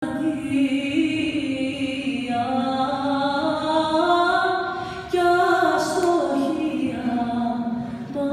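A voice singing slow, long held notes that glide from pitch to pitch, unaccompanied or nearly so, with a short break and a new phrase about five seconds in, carried in a large, reverberant church hall.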